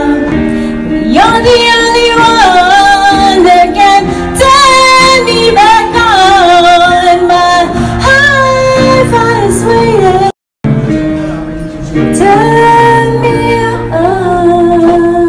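A woman singing long held notes with vibrato into a microphone, over piano chords. The sound drops out completely for a moment about ten seconds in.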